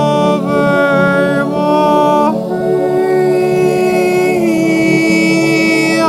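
A choir singing a long sustained "aah" chord, the heavenly-choir sound effect, its held notes shifting in pitch a few times.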